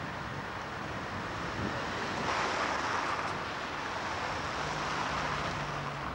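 City street traffic: a steady rush of passing cars that swells about two seconds in, with wind on the camcorder microphone and a low steady hum joining near the end.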